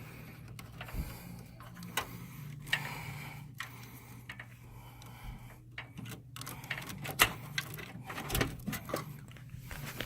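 Scattered small clicks and knocks of hands working inside a desktop PC case, fitting the new CPU cooler fan's cable onto its motherboard header, over a steady low hum.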